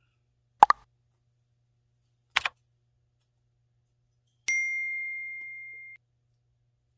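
Subscribe-button animation sound effects: two sharp double clicks about two seconds apart, then a single bell ding with a clear ringing tone that fades out over about a second and a half.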